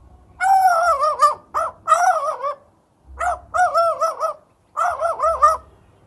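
Australian magpie calling in three runs of fast, wavering warbled notes.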